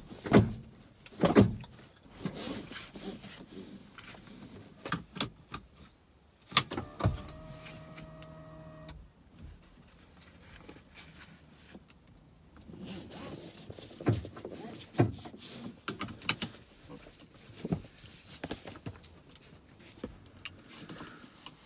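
Scattered clicks, taps and knocks of someone handling things inside a car's cabin. About seven seconds in, a small electric motor hums steadily for about two seconds and then stops abruptly.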